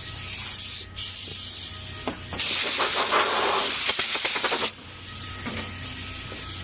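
A hissing spray of air, louder for about two seconds in the middle.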